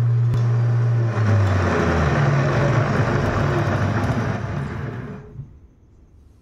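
Small electric power tool running under load, cutting through wood with a steady hum and then a rougher, noisier sound, winding down and stopping about five seconds in.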